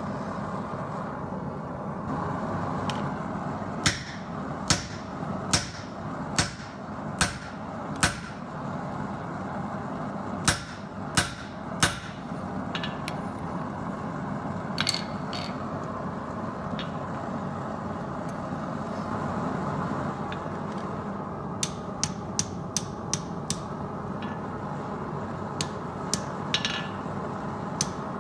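Hand forging hammer striking steel, over a steady rushing noise: a run of six heavy blows, three more after a short pause, then later a quicker series of lighter taps and a few more near the end.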